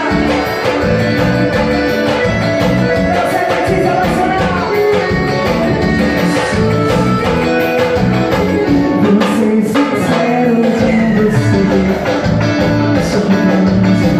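Pisadinha-style forró music playing continuously with a steady dance beat and a melody line, with singing in places.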